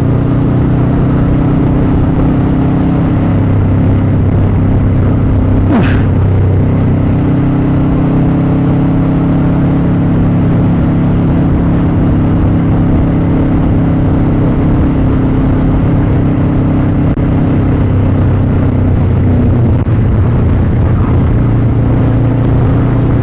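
Motorcycle engine running at a steady speed while riding, with a low rumble of wind on the microphone. There is a brief sharp noise about six seconds in, and the engine note shifts slightly near the end.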